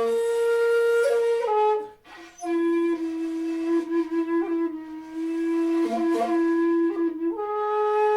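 Jinashi shakuhachi, a 2.2-length bamboo flute in B-flat, playing long held notes. A first note steps down slightly and breaks off for a breath about two seconds in. A long lower note follows with brief grace-note flicks, and the tune steps back up to a higher held note near the end.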